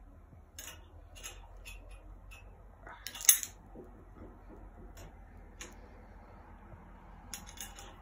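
Scattered light metallic clicks and rattles, with one louder clatter about three seconds in, as a fishing rod and its line tug at a toilet's flush handle. No flush is heard: the rush of water never comes.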